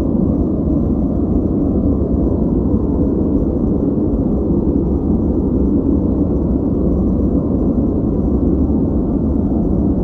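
Steady ambient noise track sold as white noise, but weighted toward the low end: an even, deep rumbling hiss with very little treble and no change in level or character.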